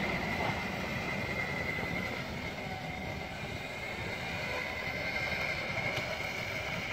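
Riding noise from a Ninebot electric scooter rolling along asphalt: a steady low rumble of tyres and wind, with a faint high whine held at one pitch.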